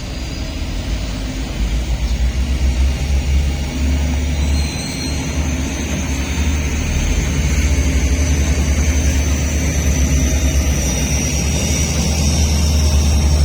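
Heavy construction machinery's diesel engine running steadily with a deep low rumble, working as gravel is loaded into a dump truck. A thin high whine comes in during the second half and holds to the end.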